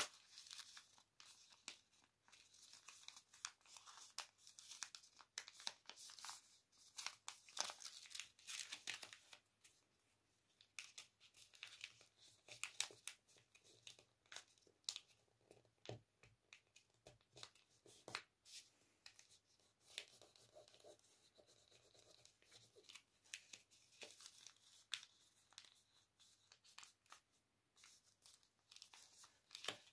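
Sheet of paper faintly rustling and crinkling as it is folded and creased by hand, in short irregular bouts that are busiest in the first third.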